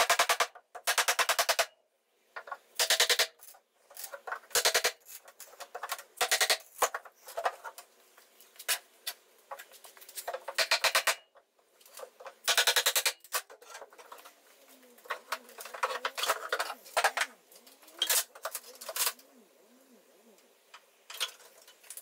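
A steel pry bar, struck with a mallet, levering up the lid of a wooden shipping crate. Nails pull out of the wood in a series of loud squeaks about half a second long, with knocks and clinks between.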